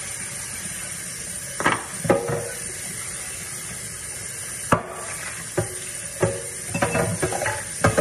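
Pots, pans and utensils clattering in a stir-fry kitchen: irregular sharp knocks, some ringing briefly, with a quick run of them near the end, over a steady sizzle of food frying in the pan.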